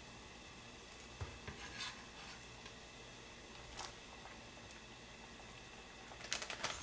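Quiet kitchen handling: a few soft knocks as cut fish cake is gathered on a knife from the cutting board, a light tap about four seconds in as the knife tips the pieces into the pot of broth, then plastic packaging crinkling near the end.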